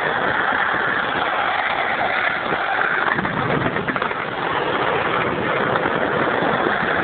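Motor scooter engine running steadily under a continuous rushing noise.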